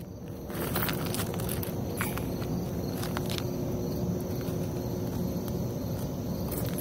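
Steady outdoor background rumble and hiss, with a few faint knocks.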